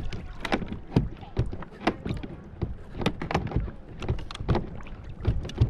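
Hobie Mirage pedal drive being unclipped from its Click-N-Go mount and worked out of the kayak's drive well: a string of irregular clicks, clunks and knocks, a few each second.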